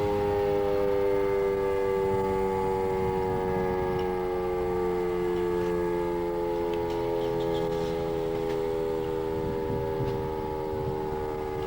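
Vintage Model 5 outdoor warning siren sounding several tones at once, all slowly falling in pitch as it winds down, and getting a little quieter towards the end.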